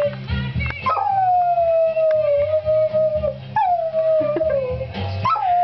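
Puppy howling along to music: three long howls, each starting high and sliding slowly down in pitch, the first beginning about a second in and the last near the end, with a song playing underneath.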